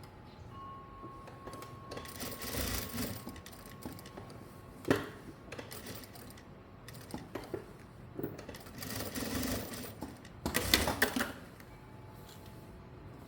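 Electric sewing machine stitching in a few short runs, with a sharp click about five seconds in.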